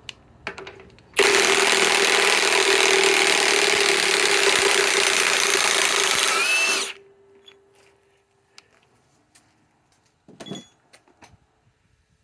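Ridgid high-torque cordless impact wrench hammering steadily for about five and a half seconds as it backs a large lag screw out of the wood, then spinning down with a falling whine. A short knock comes near the end.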